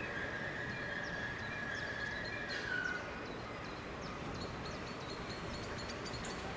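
Steel wheels of a slow-moving train squealing against the rail on a tight curve: one steady high-pitched squeal that drops a little in pitch and stops about three seconds in. A low running rumble from the train continues underneath.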